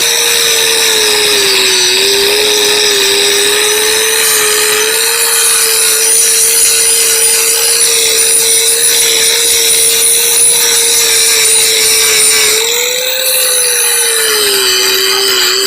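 High-speed handheld power tool running steadily as it strips glue and surface rust from a thin sheet-metal drawer, with a whine whose pitch sags under load about two seconds in and again near the end.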